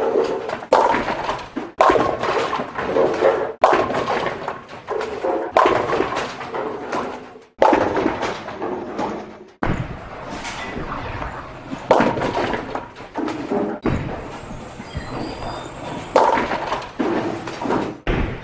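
A run of bowling sounds spliced back to back: again and again a sudden crash of a ball into the pins, the pins clattering and dying away over a second or two. In the middle comes a longer, steadier stretch of rumble with a few smaller knocks.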